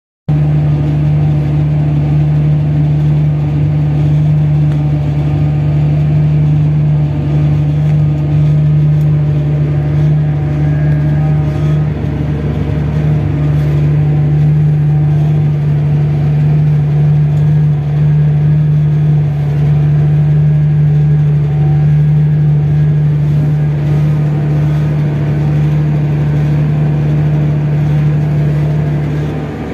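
Massey Ferguson tractor's engine running at a steady pace while pulling a corn planter, heard from inside the cab as one constant low hum with a wash of machine noise above it.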